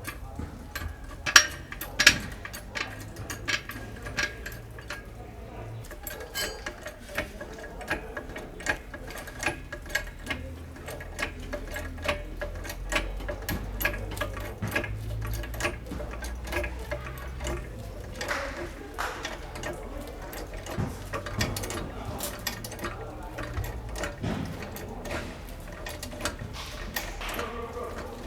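Metal hand tools working on a car's front stabilizer link: long runs of rapid ratchet-like clicking, with two sharper metal clinks about a second and two seconds in.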